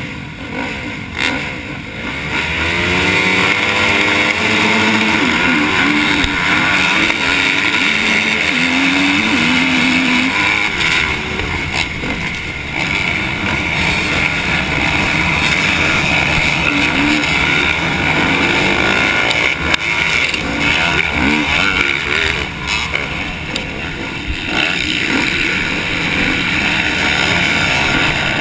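Motocross race start heard from the rider's helmet: his KTM dirt bike's engine revs hard about two seconds in and climbs through the gears in repeated rising steps, amid the engines of the surrounding pack of dirt bikes.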